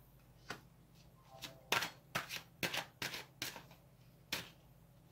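Oracle cards being handled on a table: a quick run of about a dozen sharp card clicks and slaps as cards are set down and drawn, bunched in the middle with a last one near the end.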